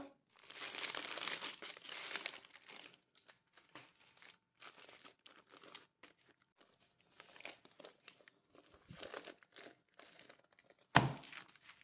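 Baking paper crinkling and rustling as a roll of puff pastry is unwrapped and unrolled, loudest in the first two or three seconds, then in softer scattered rustles. A sharp thump about eleven seconds in.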